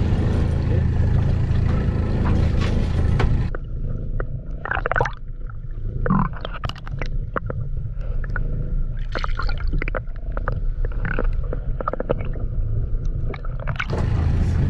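Camera going under the sea surface by hand: muffled underwater gurgling and sloshing with scattered clicks and knocks, starting suddenly about three and a half seconds in and ending just before the close. Either side of it, above water, the steady low hum of the boat's engine.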